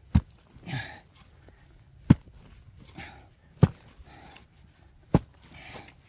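Shovel blade chopping into hard-packed earth while digging out a buried pot: four sharp strikes about a second and a half apart, with soil scraping and falling between them.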